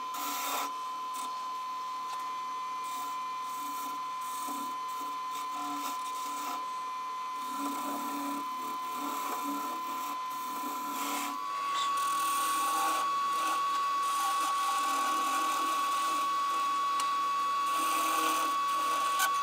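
Small wood lathe running with a steady high whine while a turning tool cuts a thin wooden spindle, the cut scraping on and off. About halfway through, the whine steps up slightly in pitch and gets louder.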